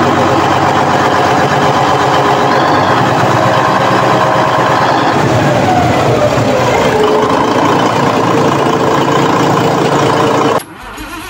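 Marine diesel engine running loudly and steadily, with a whine that falls in pitch about five to seven seconds in as it slows. Near the end the sound drops off abruptly to something much quieter.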